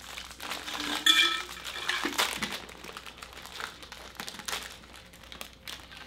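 Plastic snack wrapper crinkling and crackling as it is handled and torn open, in quick irregular rustles. There is a brief high squeak about a second in, the loudest moment.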